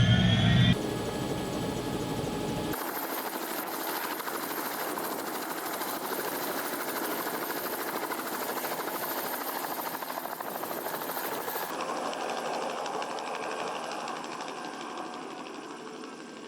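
Helicopter running, in spliced pieces: a loud low rumble for the first second, then, after abrupt cuts, a steady rotor and engine noise with a high turbine whine that fades out near the end.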